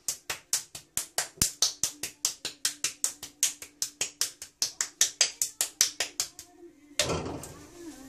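Rapid, even mechanical clicking, about four to five clicks a second, over a faint steady hum. The clicking stops about six and a half seconds in, and a short burst of handling noise follows near the end.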